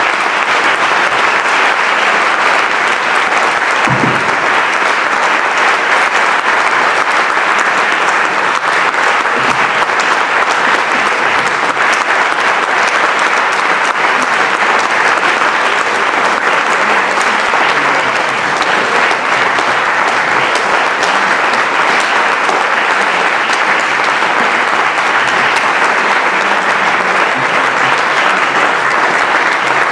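Audience applauding steadily, a long round of applause closing a speech.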